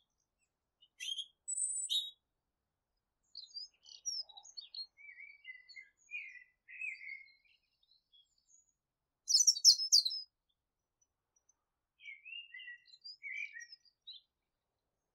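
Small birds chirping in short, scattered calls, with a louder burst of rapid chirps a little past the middle.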